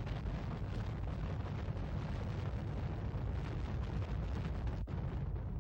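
Space Shuttle rocket launch: the solid rocket boosters and main engines firing at liftoff, a steady heavy rumble with a rough hiss over it. There is a brief dropout near the end.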